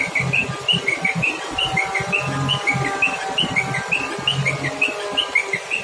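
A bird chirping over and over, short high notes alternating between two pitches two to three times a second, over a low, uneven rumble.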